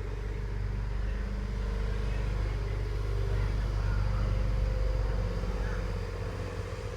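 A steady low mechanical rumble with a hum, swelling a little in the middle.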